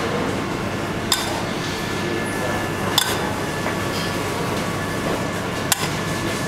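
A metal spoon clinking three times against a small stainless steel saucepan while sauce is spooned onto a plate, over a steady kitchen hum with a faint whine.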